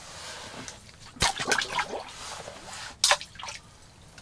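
Water splashing and sloshing in an ice-fishing hole as a walleye is let go into it, with a sharp knock about a second in and another near three seconds.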